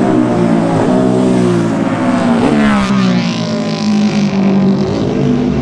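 Racing motorcycle at high revs passing at speed, its engine pitch dropping sharply as it goes by about halfway through.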